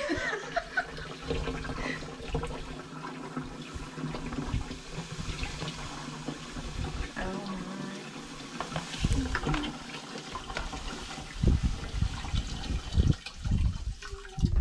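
Granulated sugar pouring in a steady stream from a paper bag into a glass jar of juice: a continuous sandy hiss like running water. In the second half, low thumps break in as the bag is handled and shaken.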